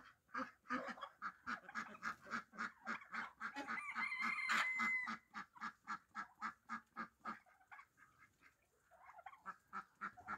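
Domestic ducks quacking in a fast, even run of short calls, about five a second, with a brief high whistle-like note about four seconds in. The calls stop for a moment after about seven seconds and come back faintly near the end.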